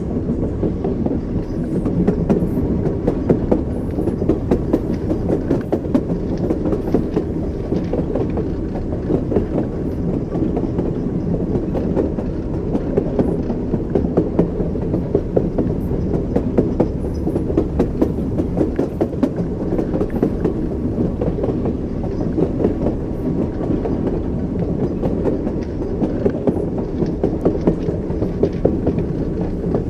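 Train wheels clattering over rail joints as the train runs at steady speed, a continuous rumble with repeated clicks and knocks.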